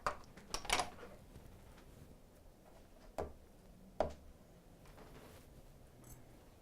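A few short knocks and clicks in a quiet room: three close together in the first second, then two more, about three and four seconds in.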